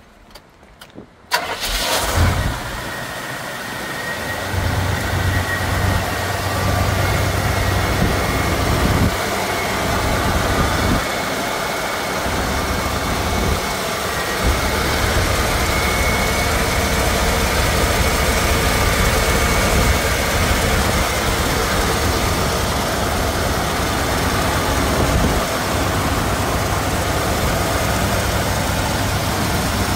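1977 Chevy K5 Blazer's carbureted V8 cranking briefly and catching on a cold start about a second and a half in, then idling steadily.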